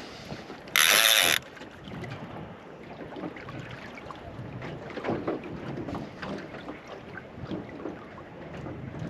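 Wind on the microphone and water lapping at a small boat at anchor, with faint scattered knocks. About a second in comes one short, loud, shrill sound, the loudest thing heard.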